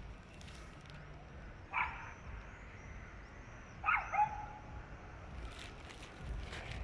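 Dog barking in the distance from an apartment building, unseen: a single bark about two seconds in, then a quick double bark around four seconds. The barking is persistent nuisance barking that goes on for hours.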